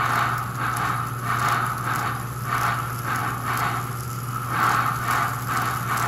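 Electronic steam-chuff sound from a small speaker on a 65-year-old American Flyer toy steam locomotive running on a test stand, the chuffs triggered by a reed switch at four per wheel revolution. Hissing puffs come roughly every half second, unevenly spaced, over a steady low hum. The builder thinks a gear is slipping.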